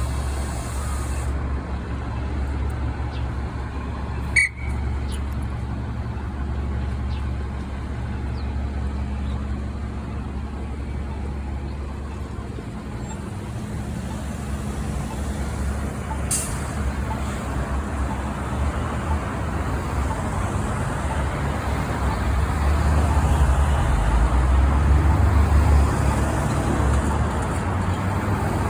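Inside an Orion diesel city bus: the engine drones steadily under road noise, and grows louder about two-thirds of the way through. There is a sharp click about four seconds in and a short hiss of air about halfway.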